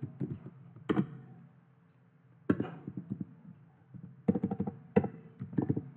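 Computer keyboard typing: a few separate keystrokes, then a quick run of them about four seconds in, over a faint steady hum.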